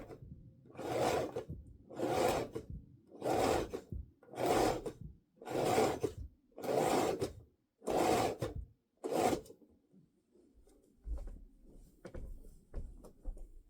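Eight regular rasping strokes, about one a second, each lasting about half a second, then a few light knocks and clicks near the end.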